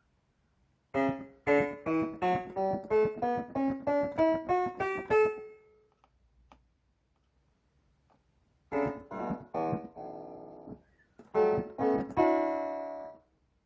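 Casio digital piano played: a rising scale of about fourteen single notes, then after a pause a few short notes and two held chords.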